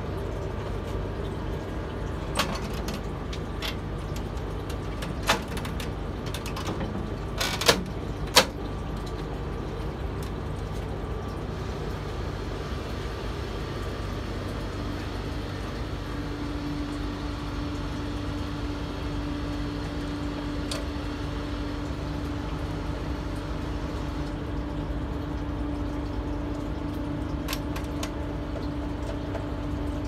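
Sharp plastic clicks and knocks from a microwave oven door being handled and fitted onto the oven, the loudest two close together about eight seconds in, over a steady background hum that gains a low steady tone about halfway through.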